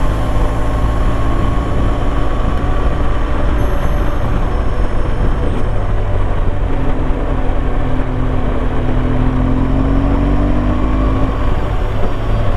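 BMW R1200GS Adventure's boxer-twin engine running on the road with steady wind rush, picked up by a microphone inside the rider's helmet. The engine note rises a little just past the middle.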